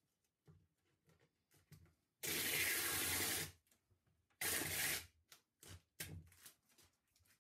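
Adhesive miter tape being pulled off its roll in a wooden tape dispenser: two noisy peeling pulls, the first lasting over a second and the second about half a second, with light taps and clicks of handling around them.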